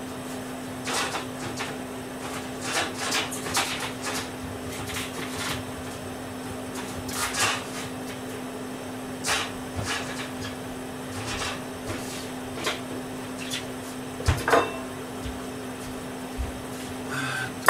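Kitchen clatter: scattered knocks and clicks of items and cupboards being handled, over a steady low hum.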